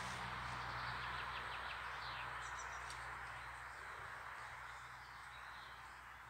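Faint, steady outdoor background hiss that slowly fades, with a few short, high bird chirps about two and a half seconds in.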